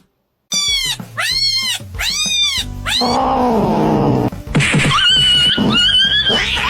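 A cat meowing and yowling: four short rising-and-falling meows in quick succession, then a long, lower yowl that falls in pitch, then a high, drawn-out cry near the end.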